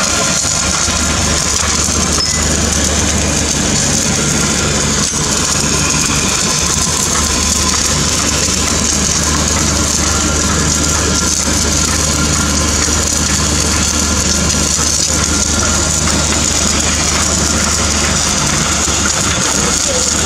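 Automatic welding equipment running: a steady, engine-like low drone with a constant hiss above it.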